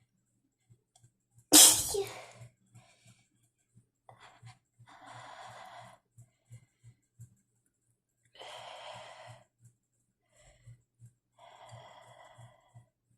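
A woman sneezes once, a loud, sudden burst about one and a half seconds in, as she tries to hold back dust-triggered sneezes. Then come three long, noisy breaths a few seconds apart.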